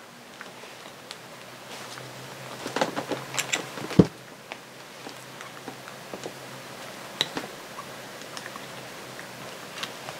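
Small clicks and scrapes of a hook pick and gloved hands working O-rings off a metal outboard prop-shaft bearing carrier, with one sharp knock about four seconds in.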